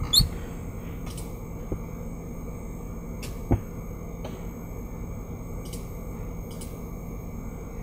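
Steady low hum of room and microphone noise, with a handful of faint computer mouse clicks spread over several seconds and a louder bump on the desk about three and a half seconds in.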